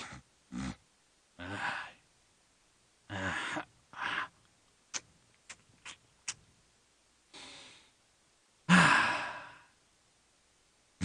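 A man making exaggerated 'dad noises': a string of breathy sighs and groans with short pauses between them and a few sharp clicks in the middle. The loudest is one long, heavy sigh near the end.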